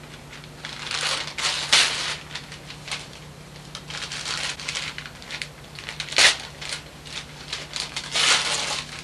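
Wrapping paper and tissue paper crinkling and tearing as a present is unwrapped, in a string of bursts, the sharpest about six seconds in. A steady low hum runs underneath.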